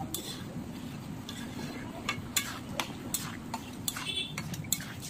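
Metal spatula stirring and scraping thick yellow pea curry (ghugni) in a metal kadai, with several sharp clinks against the pan from about two seconds in, over a steady low hum.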